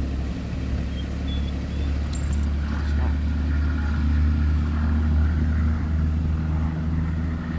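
Compact tractor engine running steadily as it works with a towed spray tank: a low, even hum that swells a little around the middle.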